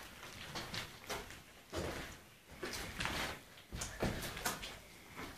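Irregular scuffing footsteps, scrapes and knocks on a gritty, debris-strewn floor, with several louder scrapes in the second half.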